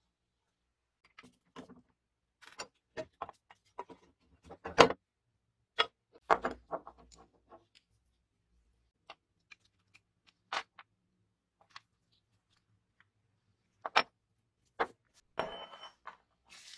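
Scattered sharp clicks, clinks and taps of small steel parts and hand tools while a vintage 3M Scotch M-96 tape dispenser is being taken apart: a screwdriver on a shaft, a pin in a shaft collar, parts set down on a wooden bench. The loudest knock comes about five seconds in, and near the end there is a short rattling scrape with a faint metallic ring.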